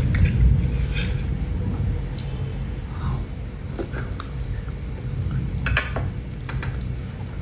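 Eating momo: scattered light clicks and clinks of a plate and utensils, with chewing, over a low rumble that fades during the first few seconds.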